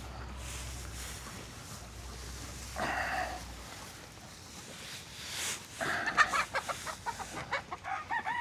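Chickens clucking, one brief squawk about three seconds in, then busier, choppy clucking from about six seconds in. A rooster starts a crow right at the end.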